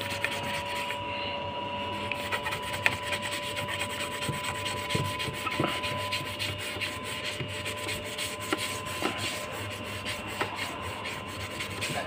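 A sponge with metal fibres scrubbing limescale off the glass of a washing machine door: a continuous rasping rub made of quick back-and-forth strokes.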